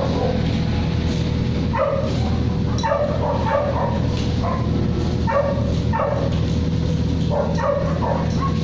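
A dog barking in short, repeated barks over a steady low hum.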